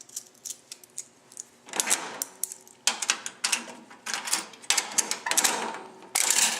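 Coin-operated restroom vending machine being worked: a run of clicks, then several bursts of metallic rattling and clattering as coins go in and the dispensing mechanism turns and drops an item.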